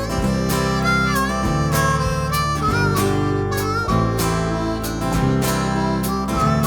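Harmonica playing a melody over a strummed acoustic guitar, in a bluesy country style.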